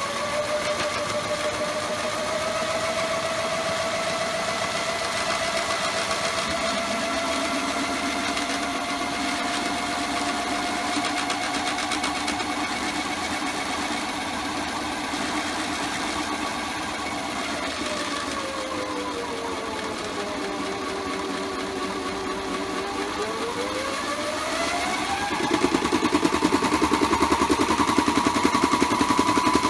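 Small electric motor of a modified toy washing machine spinning the drum on its spin cycle: a steady whine that climbs slowly in pitch, sags for several seconds past the middle, then rises again. Near the end it gets louder, with a buzzing rattle of the machine vibrating.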